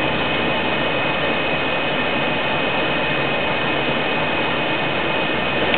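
HVAC blower fan in a 1999 Chrysler Town & Country running at high speed, air rushing steadily through the dash vents, with a thin high whine on top. The van's climate control is running its self-test sequence.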